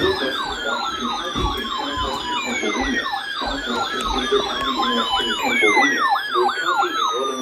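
Several emergency-vehicle sirens sounding at once. A yelp sweeps up and down a few times a second, a quicker warble sits above it, and a long falling tone repeats every two to three seconds.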